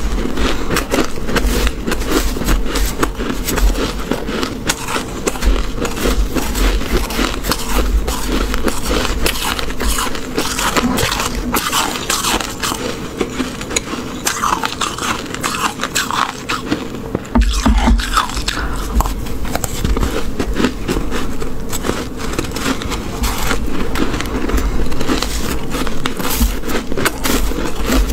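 Metal spoon scooping and scraping through a heap of loose freezer frost: a dense, continuous crackling crunch, with mouthfuls of frost crunched between the teeth at times.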